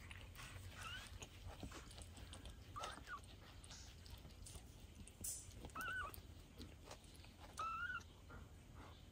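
A kitten mewing faintly: about four short, high, arching mews a few seconds apart, the last ones a little louder.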